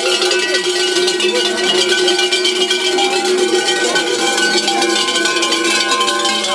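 Many large bells worn by a troupe of carnival jesters, clanging together in a loud, continuous, dense ringing as the troupe moves.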